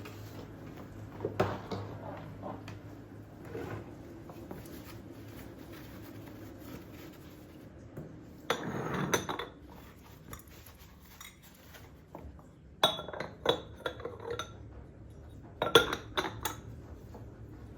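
Dishes and cutlery clinking and knocking as they are handled. The clinks come in scattered clusters, with a short, louder rattle about nine seconds in.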